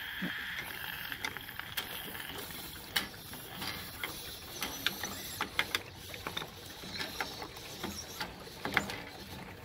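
Spring-loaded thermal regulator cap on a Pentair MasterTemp 400 pool heater being twisted loose with a screwdriver and by hand: scattered small clicks and scrapes as the cap turns under spring pressure.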